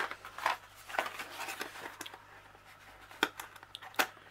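A small cardboard box being picked up and turned over in the hands: soft scrapes and rustles with a few light knocks, the sharpest about three and four seconds in.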